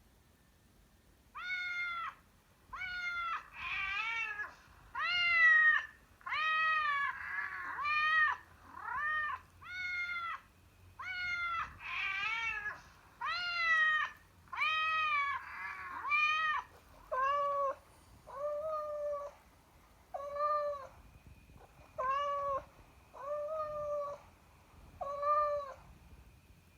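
A cat meowing over and over, about eighteen meows, each rising and then falling in pitch. The first meows are higher and crowd together; from about two-thirds of the way in they are lower and come at an even pace of roughly one a second.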